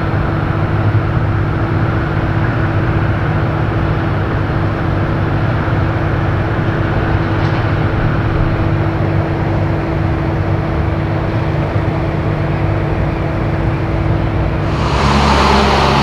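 Steady drone of machinery running at a parked Boeing 777 freighter on its stand: a constant low hum with a held tone under an even hiss. About a second before the end it switches abruptly to a louder rushing noise.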